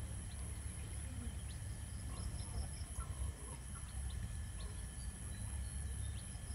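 A hen brooding her chicks, with faint scattered short calls from the chickens (brief chirps and high peeps) over a steady low rumble.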